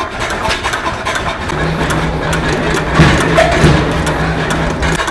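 Small antique stationary flywheel engine running with a steady, rhythmic mechanical clatter. A low steady hum joins in about a second and a half in.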